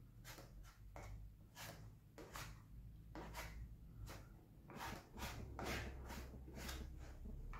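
Plastic filler spreader scraping flexible body filler across a sanded plastic motorcycle fairing, in short irregular strokes about two or three a second.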